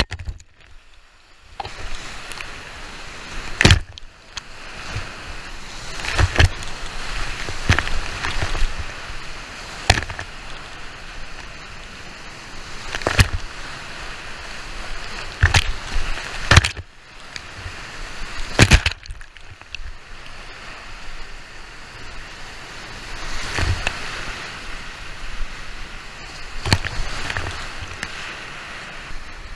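Whitewater rapids rushing around a kayak, heard from a GoPro on the paddler's helmet, with frequent sudden splashes and knocks as paddle strokes and breaking waves hit the boat and the camera.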